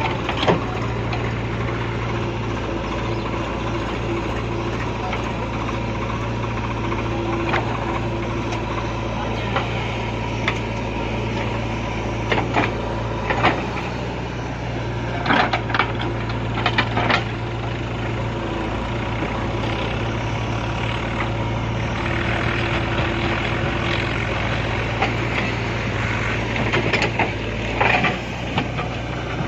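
A heavy diesel engine running steadily, with short knocks and clanks every few seconds, as of a digger at work.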